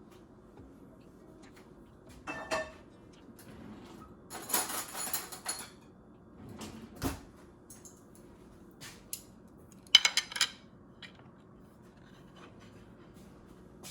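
Dishes and kitchen utensils being handled, in separate bouts. There is a ringing clink a little over two seconds in, a longer rattling clatter from about four and a half seconds, a dull knock about seven seconds in, and a quick run of sharp clinks near ten seconds.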